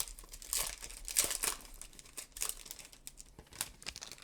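Booster pack wrapper being torn open and crinkled: irregular crackling rustles, loudest in the first second and a half, then thinning out near the end.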